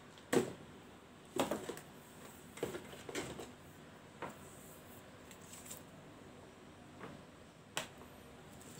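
A power cord and its plastic wrapping being handled and unwound on a table: a few short, scattered knocks and rustles, the sharpest about half a second in.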